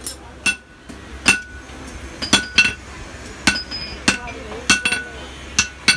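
Hand hammer striking a steel cleaver blade, cut from a tractor's disc plough, on an anvil while forging it. There are about ten blows at an uneven pace, each with a metallic ring.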